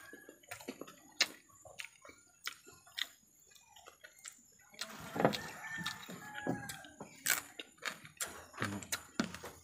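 Close-miked eating sounds of a person eating by hand: irregular wet clicks and smacks of chewing and lip smacking, busier about five seconds in.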